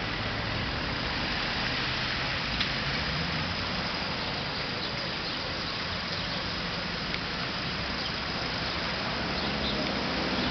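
Steady hum of street traffic, with cars passing on a wet road.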